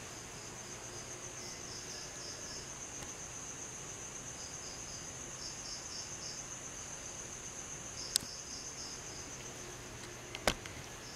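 Night insects, crickets, chirping steadily, with a pulsing trill just below the main high tone. A sharp click comes about eight seconds in, and a louder knock near the end.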